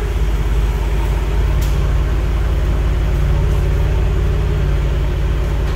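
Large Hyster forklift's engine running steadily with a deep, even drone, with one light click about a second and a half in.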